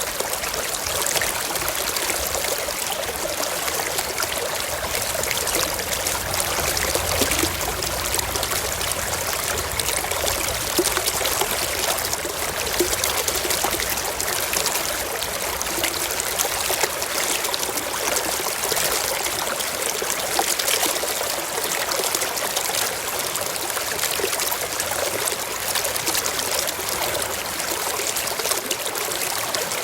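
Mountain stream flowing over rocks: a steady rush of water with small splashes and trickles.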